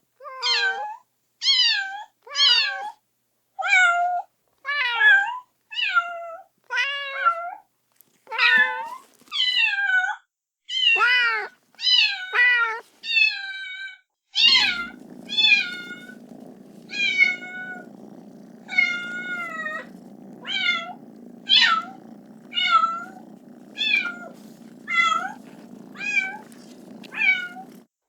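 Kitten meowing over and over, about one high-pitched call a second, each rising then falling in pitch: a kitten crying for its mother. About halfway through, a steady low hum starts beneath the meows.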